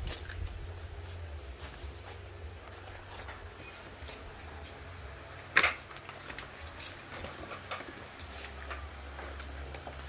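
Gift packaging being handled and opened: scattered light rustles and clicks, with one sharp knock about five and a half seconds in.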